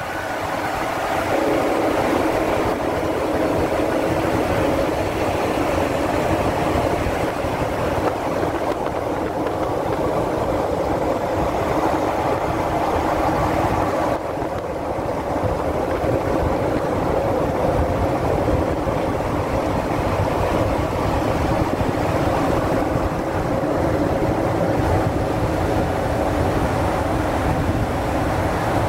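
Steady motorway driving noise: tyres on the road, wind and engine of a Mercedes-Benz Arocs 3353 S 6x4 tractor unit running at speed alongside the vehicle carrying the microphone. The level dips slightly at a cut about halfway through.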